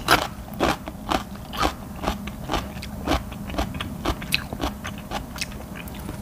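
Close-miked chewing of a thick boiled octopus tentacle, a rubbery bite that takes long chewing, with sharp chewing clicks coming at a steady pace of about two a second.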